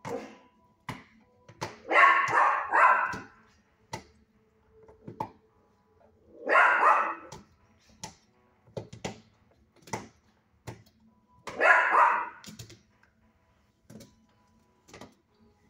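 A dog barks three times, the first a drawn-out double bark, with short light clicks and taps in between.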